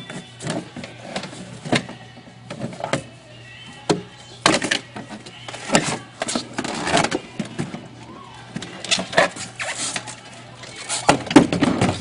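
Irregular knocks and clanks of a refrigerator's sheet-metal cabinet being pried and pulled apart for scrap, some blows sharper and louder than others, with the loudest cluster near the end.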